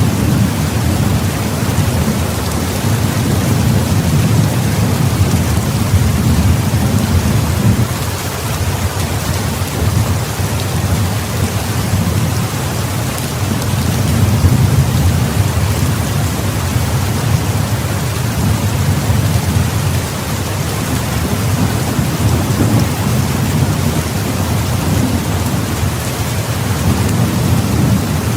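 Heavy, steady rain, with a low rumble of thunder that swells and fades in long waves underneath.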